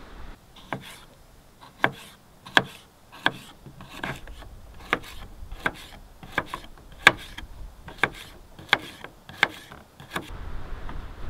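Kitchen knife slicing a cucumber into rounds on a plastic cutting board, each cut ending in a sharp tap of the blade on the board. There are about fourteen slices, roughly one every two-thirds of a second.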